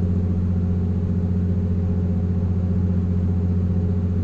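Steady low drone of a ship's diesel machinery: a deep, even hum that holds one pitch and level throughout.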